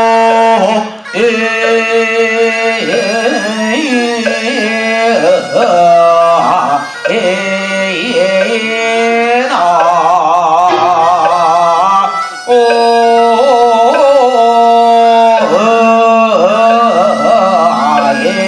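Music: a melody with wavering, sliding pitch held over a steady low drone note, the melody pausing briefly a few times.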